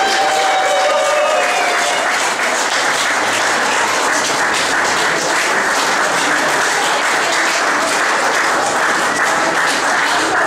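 Audience applauding, dense and steady. In the first second or so, the last held note of the song fades out under the clapping.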